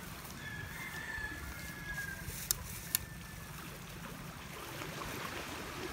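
Steady outdoor background of flowing water, with a faint, long, high call in the first half and two sharp clicks about half a second apart near the middle.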